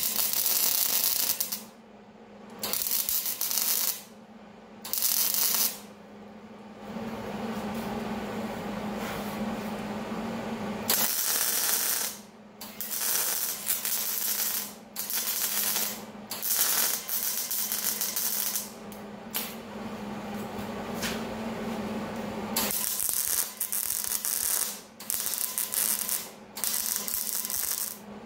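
MIG welding arc sizzling and crackling as a steel post is welded onto a steel grate frame, in a run of stop-start welds each lasting about one to four seconds with brief pauses between. A steady low hum sits underneath.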